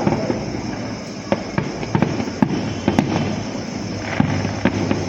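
Fireworks going off in a rapid, irregular string of sharp bangs and cracks over a continuous crackling rumble.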